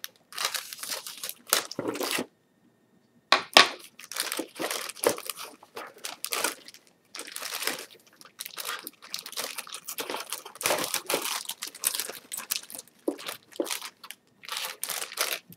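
Clear plastic bag crinkling and rustling in irregular bursts as it is handled around model-kit sprues, with a brief stop about two seconds in and a sharper crackle just after.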